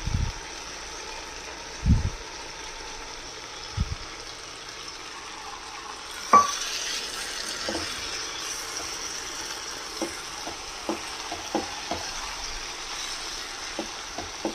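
Chicken curry sizzling and bubbling in a pan as gravy is scraped in from a second pan and stirred with a silicone spatula. A few dull knocks come in the first four seconds, a sharp knock about six seconds in, and then the sizzle grows louder, with soft clicks of the spatula.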